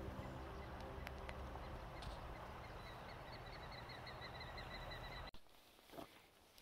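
Outdoor mountain-forest ambience with a steady hiss and a few light clicks; about three seconds in a bird trills a rapid run of short, evenly repeated high notes for about two seconds. Just past five seconds the sound cuts to a quieter scene with a few soft ticks.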